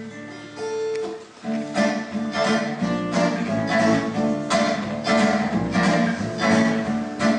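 Acoustic guitar introduction: a few picked single notes, then rhythmic strummed chords about twice a second from a little under two seconds in. A double bass comes in underneath about three seconds in.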